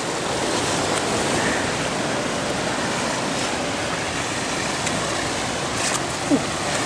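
Steady rush of ocean surf breaking on the rocks, with a brief knock about six seconds in.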